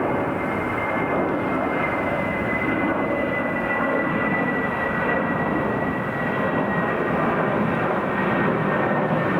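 Airliner engines running: a steady roar with a high whine that slowly drops in pitch.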